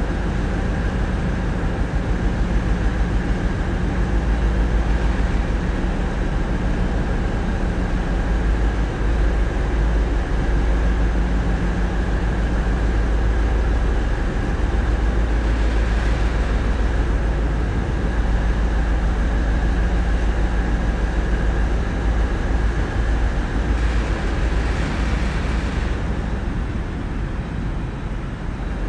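Tugboat's diesel engines running steadily under way, heard inside the wheelhouse as a deep constant drone. A brief rush of hissing rises over it about 16 seconds in and again about 24 to 26 seconds in.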